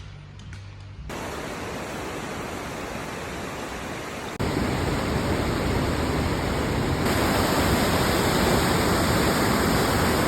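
Steady rush of flowing creek water. It jumps louder abruptly three times, about one, four and seven seconds in.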